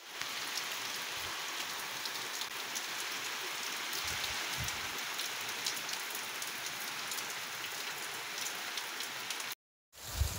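Steady rain falling on ground and foliage: an even hiss sprinkled with many small drop ticks. It cuts off abruptly near the end, and louder rain noise follows.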